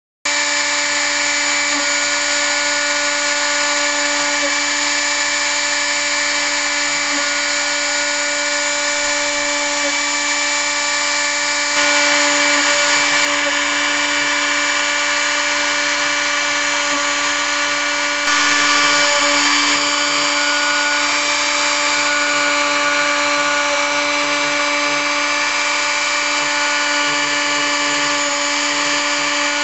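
CNC router spindle running at 18,000 rpm, its V-bit milling cherry wood: a steady whine over the hiss of the cut. The cutting noise grows louder twice, briefly.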